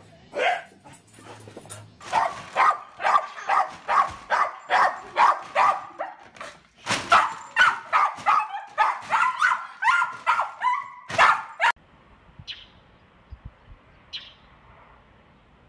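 A dog barking over and over in quick, sharp barks, about two a second, for roughly ten seconds, cutting off abruptly near the end. Then quiet background with two brief faint high chirps.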